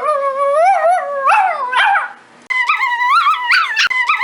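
Dog howling and whining in drawn-out tones whose pitch keeps rising and falling. It breaks off about two seconds in and starts again half a second later at a higher pitch.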